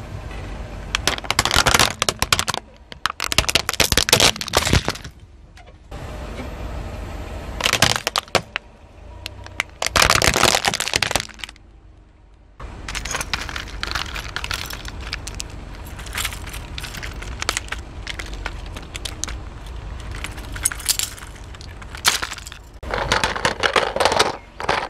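Hard plastic toy gun cracking and snapping as a car tyre rolls over and crushes it, in several sharp bursts with a longer stretch of finer crackling in the second half.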